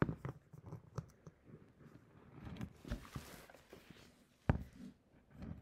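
Faint handling noise of a glass jar and a flashlight held in the hands: a few sharp clicks and knocks, the loudest about four and a half seconds in, and a brief rustle near the middle.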